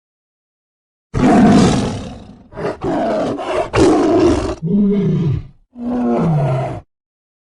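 Big cat roaring: starting about a second in, one long loud roar, then a run of shorter roars, and near the end two shorter calls that fall in pitch.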